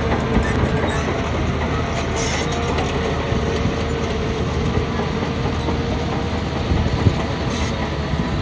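Shantui DH17 crawler bulldozer working: its diesel engine runs steadily under a continuous clanking, rattling clatter from the steel tracks, with one sharp knock near the end.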